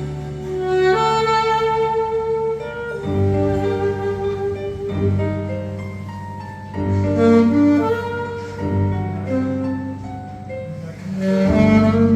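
Saxophone playing a slow melody of long held notes over an accompaniment of sustained low notes that change every second or two.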